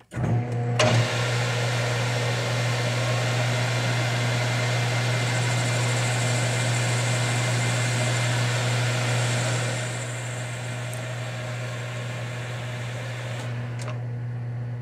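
Manual lathe switching on and running with a steady motor hum while a radius form tool plunges into a half-inch aluminium bar, cutting with a continuous hiss. The noise eases about ten seconds in and falls away near the end.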